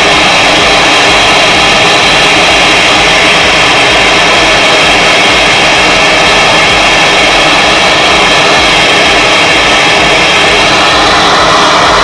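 Hand-held gas brazing torch flame hissing loudly and steadily, close up, as it heats a copper suction-pipe joint on a refrigerator evaporator coil for brazing.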